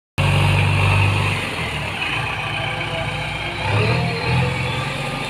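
JCB backhoe loader's diesel engine working as the front bucket pushes soil and brush along the ground. The engine is loudest for the first second, drops back, and picks up again about four seconds in.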